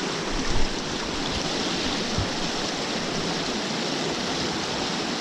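Steady rushing of a small freestone mountain stream flowing over rocks, with one brief bump about half a second in.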